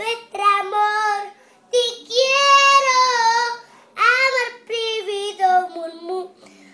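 Young girl singing unaccompanied: several short sung phrases, with one long held note about two seconds in.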